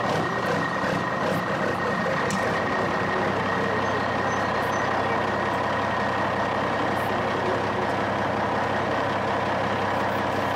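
A truck engine sound running steadily, with a faint high whine held over an even mechanical noise.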